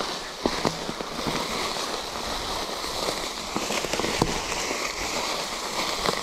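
Calibre Triple B mountain bike rolling over a dry, leaf-covered woodland trail: a steady rush of riding noise with frequent irregular crackles and snaps as the tyres crush dry leaves and twigs.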